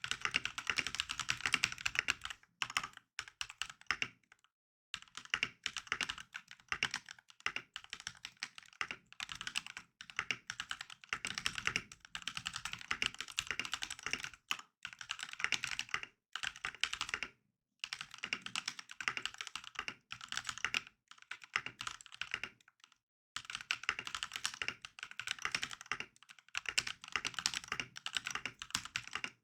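Mechanical keyboard with KTT Matcha switches, not yet lubed and with a tape mod, being typed on quickly in long runs of clacks with a few short pauses.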